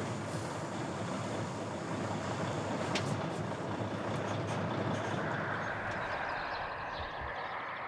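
Truck driving past: a steady rush of engine and tyre noise, with a faint rising whine in its second half.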